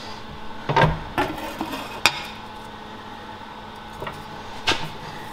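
Sheet steel clanking and knocking against a manual sheet metal brake as the panel is handled and repositioned in it for another bend. There are several sharp metallic knocks; the clearest come about two seconds in and near the end.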